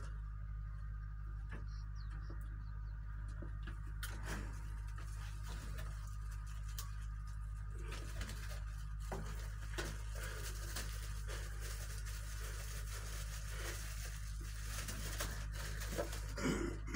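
Steady low hum with faint scattered taps and clicks, and a short cluster of louder sharp taps near the end.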